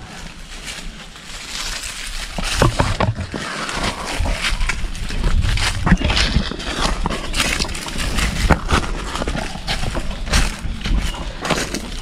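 Footsteps crunching through dry leaf litter, an irregular run of crackles and snaps, over a low rumble on the microphone.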